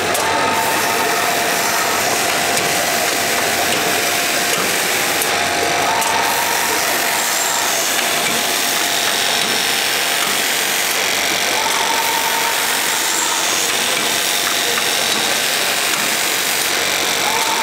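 Durkopp Adler 971-01 automatic cuff sewing unit running: a steady, dense mechanical clatter and hum from the sewing head and template mechanism as cuffs are run-stitched and trimmed. A short higher tone comes back about every six seconds.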